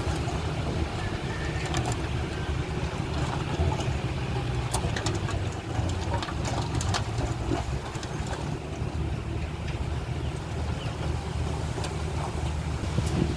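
Heavy earthmoving machinery's diesel engine running steadily, with scattered short clicks and knocks over the drone.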